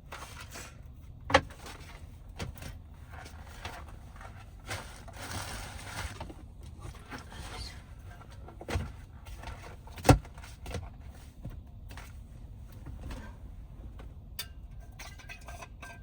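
A series of irregular knocks and bumps, with two sharp thumps much louder than the rest, one about a second in and one about ten seconds in, over a low steady rumble.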